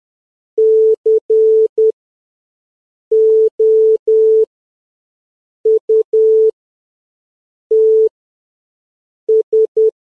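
Morse code beeps: a single steady electronic tone keyed in dots and dashes, spelling C, O, U, T, S (dash-dot-dash-dot, dash-dash-dash, dot-dot-dash, dash, dot-dot-dot), with a pause between letters.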